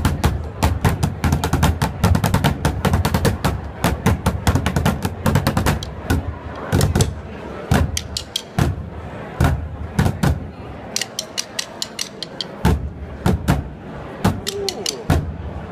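Bucket drumming: two players beat wooden drumsticks on an upturned plastic trash can in a fast, dense pattern of deep hits and sharp clicks. After about six seconds it thins to sparser, sharp clicks of sticks struck against each other in the air, with a few more deep hits on the bin.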